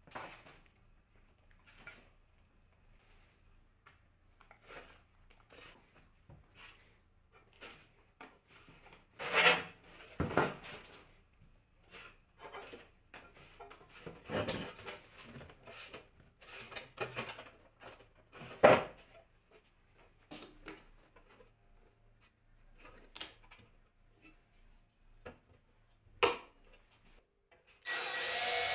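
Thin sheet metal being scribed, handled and folded by hand on a wooden bench: scattered scrapes and rubs with a few sharp clanks. A cordless drill starts up near the end.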